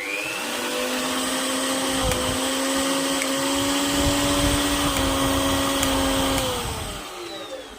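Mixer grinder motor switched on: it spins up with a rising whine, runs at a steady high-pitched hum for about six seconds, then is switched off and winds down.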